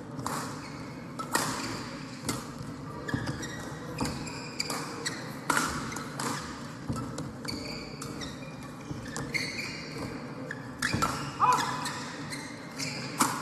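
Badminton rally: sharp racket strikes on the shuttlecock about once a second, mixed with short squeaks of shoes on the court floor. The loudest strikes come near the end.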